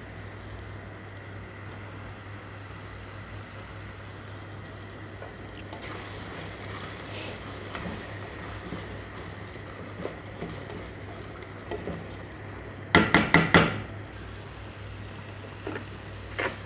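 Cooking utensil knocking against a pot of simmering curry: a quick run of about five sharp clacks about thirteen seconds in, and one more near the end, over a steady low hum.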